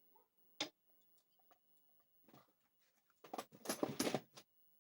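Light clicks and knocks of small hard objects being handled: a single click about half a second in, then a quick cluster of clicks and scrapes about three to four seconds in.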